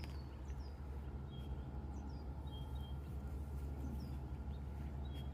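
Steady low hum with a handful of faint, short, high-pitched bird chirps scattered through it, some falling quickly in pitch and some held briefly on one note.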